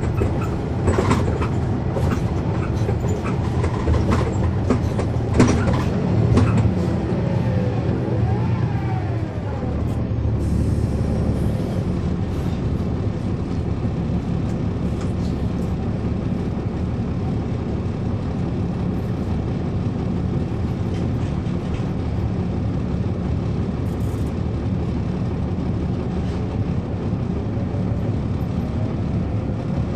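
Cummins ISL9 diesel engine of a NABI transit bus heard from inside the cabin while driving, with clicks and rattles through the first several seconds. A whine rises and falls in pitch about nine seconds in, and another whine rises in pitch near the end as the bus picks up speed.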